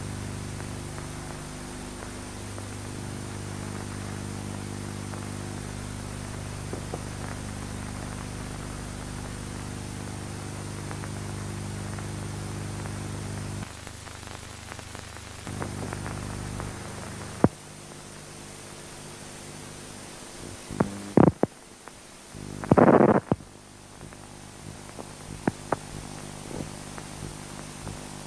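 Steady electrical hum with hiss from an old recording. The hum drops out briefly about 14 s in and stops for good at about 17 s. After that comes hiss with scattered clicks and crackles, and a short loud buzzy burst about 23 s in.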